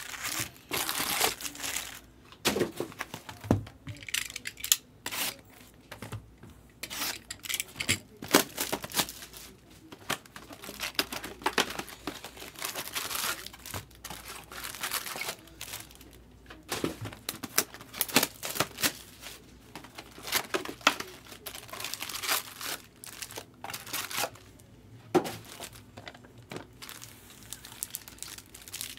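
Foil-wrapped 2024 Bowman baseball card packs crinkling and rustling in irregular bursts as they are handled, pulled from an opened box and stacked, with some tearing of wrapper.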